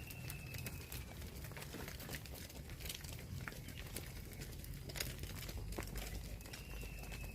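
Cow tearing and chewing fresh grass: scattered crisp crunching clicks. A thin, slightly falling whistle of about a second sounds at the start and again near the end.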